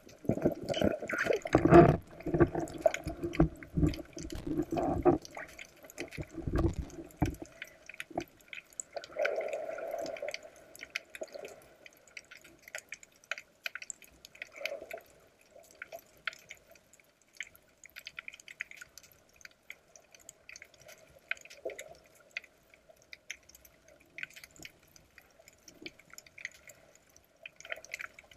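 Water heard by a camera underwater: a few seconds of loud sloshing, knocking and bubbling at the surface, then fainter, steady crackling and ticking for the rest.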